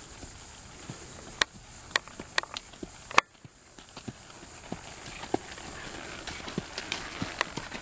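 American Quarter Horse gelding walking on a dirt track: hoofbeats with scattered sharp clicks, and a short dip in level a little past three seconds.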